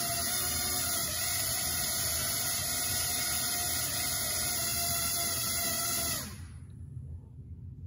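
Small drone's electric propeller motors running at a steady high whine, then spinning down and stopping a little after six seconds in.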